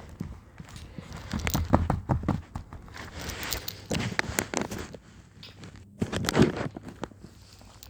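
Handling noise close to the microphone: irregular rustling, crackling and tapping of objects being handled, with a louder cluster about six seconds in.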